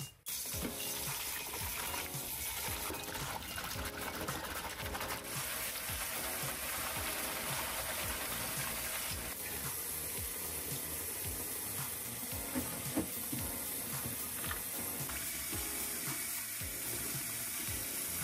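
Kitchen tap running into a stainless steel sink while green onions and leeks are rinsed and rubbed by hand in a bowl of water, with splashing. Background music plays under it.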